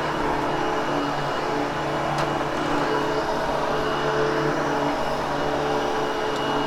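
Vacuum cleaner running steadily as it is worked over carpet, a continuous motor hum with several steady tones under an airy rush.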